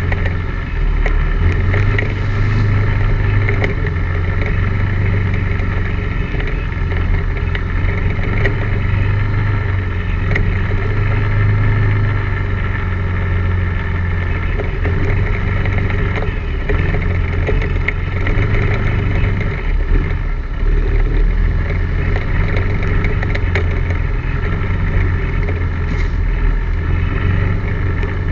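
ATV engine running steadily with a constant low drone while riding a rough dirt trail, with scattered small knocks and rattles over it.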